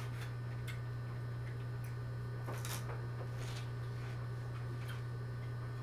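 A steady low hum under faint, scattered clicks and taps of people eating at a table, with the clearest tap about two and a half seconds in.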